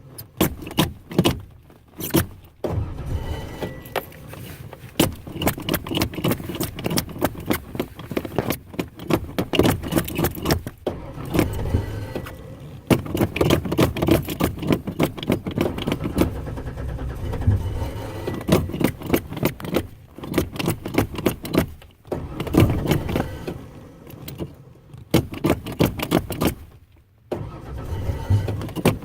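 Ford Ranger pickup's starter cranking the engine over and over, pulsing rapidly, in a string of attempts broken by short pauses: a hard start, the engine not catching and running.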